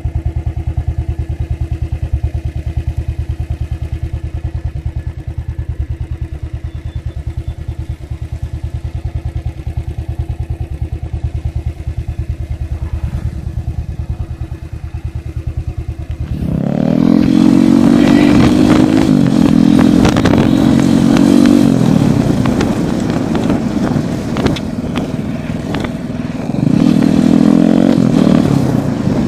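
Royal Enfield Thunderbird's single-cylinder engine idling with a steady low thump; about two-thirds of the way in the bike pulls away, and the engine note rises and drops as it shifts up through the gears, then climbs again near the end.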